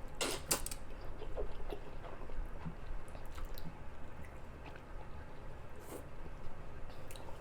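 Close-miked chewing and wet, squishy mouth sounds of a person eating spicy Korean noodles, with a few sharp smacking clicks, the loudest cluster near the start.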